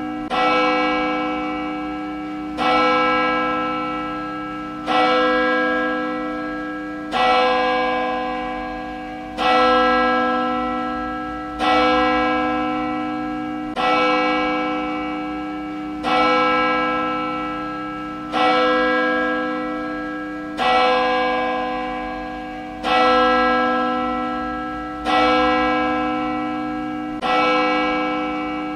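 A single church bell tolling slowly and evenly, struck about every two seconds, thirteen strokes in all. Each stroke rings on with the same deep, rich set of tones and fades into the next.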